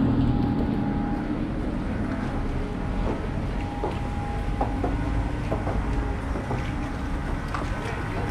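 Street traffic on a wet city road: a steady low rumble of vehicles, with an engine hum that fades about a second in and a few scattered short knocks.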